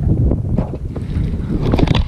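Wind buffeting the microphone: a loud, fluttering low rumble, with a few short clicks near the end.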